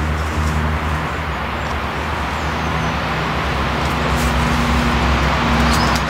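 Steady rumble of road traffic with a low hum, with a little rustling from the undergrowth near the end.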